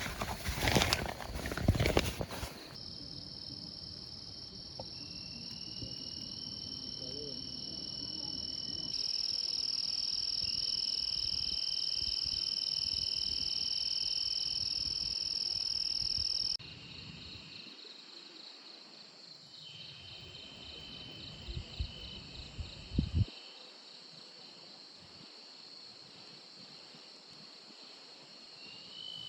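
A steady, high-pitched chorus of insects trilling in woodland, with the mix changing abruptly a few times. It is preceded by a couple of seconds of louder rustling and knocking, and there are a few soft thumps near the end.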